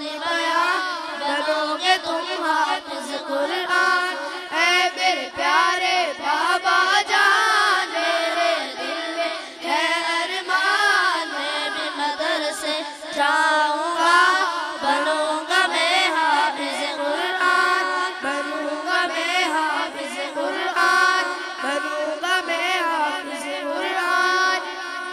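Three boys singing a devotional Urdu nazm together into handheld microphones, their voices amplified.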